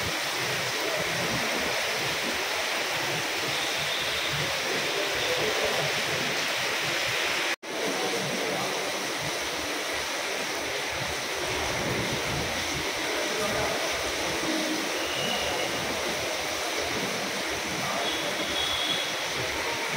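Heavy rain falling, a steady hiss that breaks off for an instant about seven and a half seconds in.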